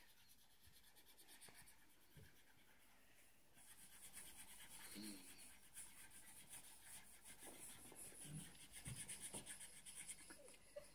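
Faint scratching of a felt-tip marker and a pencil on paper, in short irregular strokes starting about four seconds in; before that, near silence.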